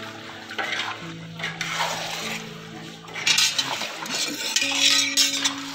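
A flat metal ladle scraping and clinking against a large metal cooking pot as chicken pieces are stirred in oil and masala, in irregular strokes that are loudest about three and five seconds in. Background music with held notes runs underneath.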